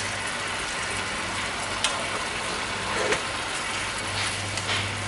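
Braising sauce bubbling and sizzling steadily around chicken pieces in a frying pan as it reduces. A few light clicks of chopsticks against the pan come about two, three and nearly five seconds in.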